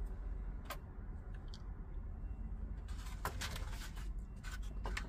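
Hands handling an unpotted succulent's root ball, with soft crunching and a few scattered clicks of loose potting soil and grit falling onto the tray.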